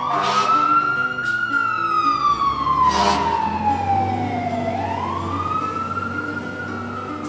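Fire engine siren wailing: a slow rise, a long falling glide, then a second rise that fades near the end, with a few sharp clicks early on the way. Faint background music underneath.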